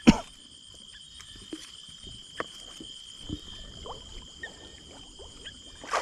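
Steady high-pitched insect chorus, with scattered knocks and rustles and a sharp thump right at the start.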